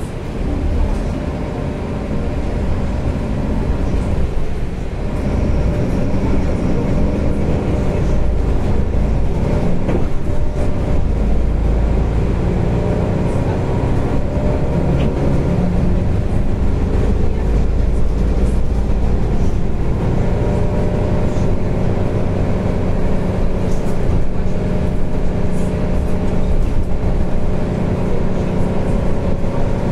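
Mercedes-Benz O530 Citaro city bus heard from inside the passenger cabin while driving: steady low engine and road rumble, with an engine hum that shifts in pitch. It grows louder about five seconds in.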